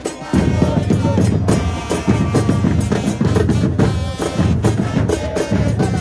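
Football supporters' band in the stands: big bass drums beating a steady rhythm with trumpets playing over them, and the crowd chanting along.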